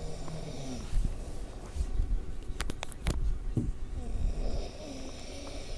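A man snoring hard in his sleep: two long, rasping snoring breaths, one at the start and one about four seconds later. A couple of sharp clicks come between them.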